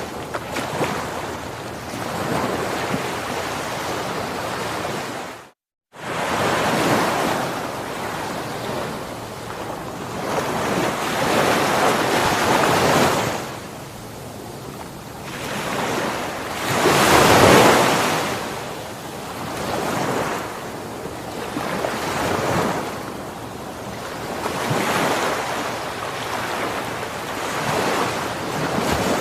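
Ocean waves washing onto a shore, rising and falling in repeated swells every few seconds. About five and a half seconds in, the sound cuts out completely for a moment before the surf resumes.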